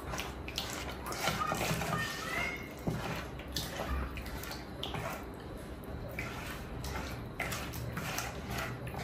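Water running and splashing, with scattered light clicks and clinks.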